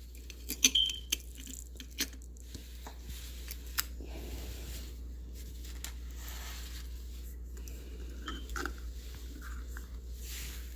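A few small sharp clicks and soft rustling from a metal pocket watch and its chain being handled, over a steady low hum.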